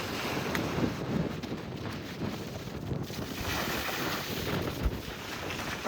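Wind buffeting the microphone over the rush of waves breaking on the lake shore, a gusty, uneven noise.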